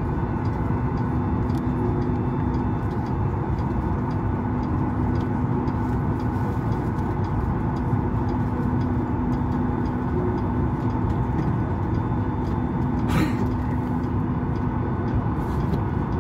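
Steady cabin noise inside a Boeing 737-8200 taxiing, its CFM LEAP-1B engines near idle: a continuous drone with a held low hum and faint higher tones. A short sharp hiss cuts in about 13 seconds in.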